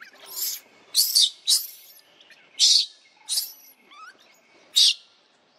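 Baby long-tailed macaque giving a series of about seven short, shrill screams: distress cries while its mother handles it roughly.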